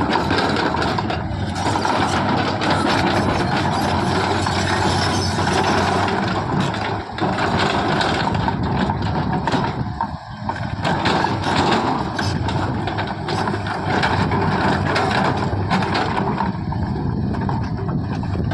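Diesel engine of a JCB earthmoving machine running steadily, with frequent metallic knocks and clatter from the machine at work; the noise dips briefly about ten seconds in.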